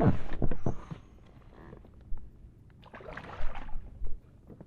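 Water splashing and knocks against a small inflatable boat as a fish is landed: a loud burst with a few knocks at the start, and a shorter splash about three seconds in.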